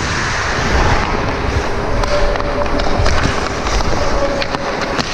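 Ice hockey skates scraping and carving on the rink ice, with air rushing over a camera worn by the skating player. In the second half come several sharp clicks of a hockey stick against the puck and ice.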